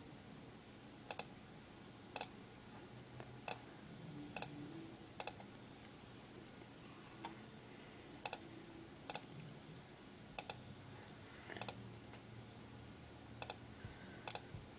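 Computer mouse button clicking, a sharp click every second or so, some in quick pairs, as points of a lasso selection are placed one by one.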